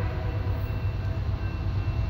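Freight train rolling past: a steady, low rumble of the locomotives and cars, with no horn sounding.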